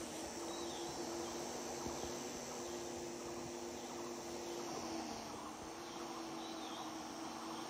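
Swarm of giant honey bees (Apis dorsata) buzzing around their disturbed nest: a steady, even hum with a higher buzz that fades in and out as bees pass near.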